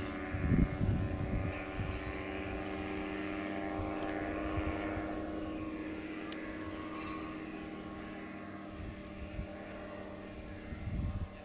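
Rotax 277 single-cylinder two-stroke engine of an Earthstar Laughing Gull ultralight droning steadily in flight overhead, slowly growing fainter as the aircraft flies away. A few brief low bumps sound near the start and near the end.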